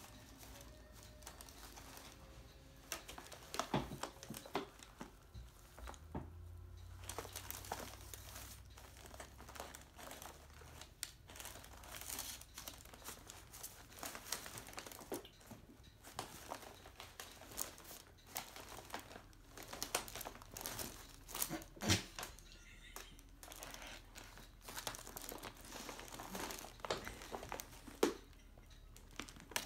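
Paper receipts crinkling and rustling as a cat paws and noses through a plastic accordion file folder, a steady run of irregular rustles with a few sharper, louder rattles.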